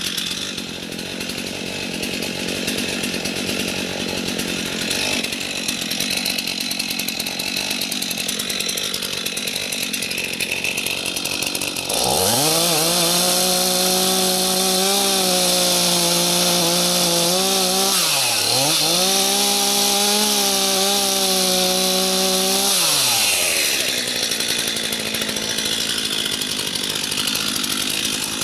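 Stihl MS 251 C two-stroke chainsaw idling. About twelve seconds in it revs up to full throttle and cuts into a small tree for about ten seconds, with a brief dip in revs midway, then drops back to idle.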